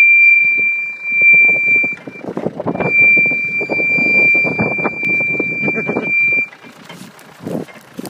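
A slowly rolling 4x4 with a steady high-pitched squeal of one unchanging pitch, broken by a short gap about two seconds in and stopping about six and a half seconds in. Gravel crunches under its tyres and under footsteps alongside.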